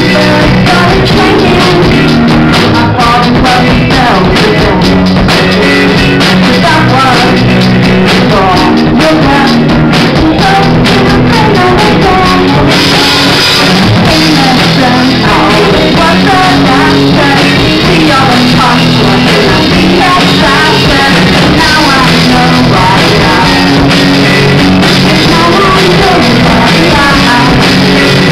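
Live rock band playing loudly: electric guitar, bass guitar and drum kit, with a tambourine shaken along; the cymbals get brighter about halfway through.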